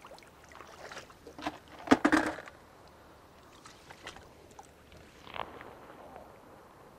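Shallow seawater splashing and sloshing in a rocky tide pool as gloved hands and rubber boots move through it, in a few short splashes, the loudest about two seconds in.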